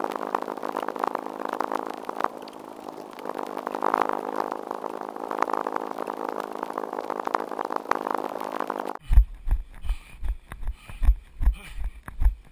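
Fast-forwarded audio of a runner's own footsteps and movement picked up by a GoPro Hero2, sped up into a steady mechanical-sounding buzz. About nine seconds in it cuts to real-time running: footfalls thudding through the camera about three times a second.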